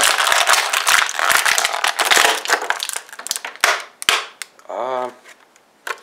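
A stiff clear plastic blister pack being handled and pried open, crackling and crinkling with many sharp snaps, thinning out to a few clicks about halfway through.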